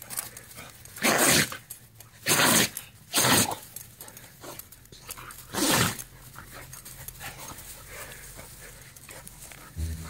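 A Jindo dog sneezing hard four times in the first six seconds, each a short, loud burst, after knocking her nose on another dog's paw in play.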